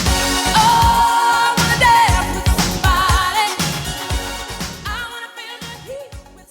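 1980s dance-pop song with a female lead vocal singing wavering held notes over a steady drum beat, fading out at the end of the track.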